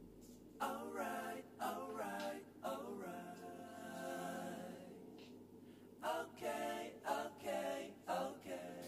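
Quiet unaccompanied singing in short phrases, starting just under a second in, with one long held note in the middle.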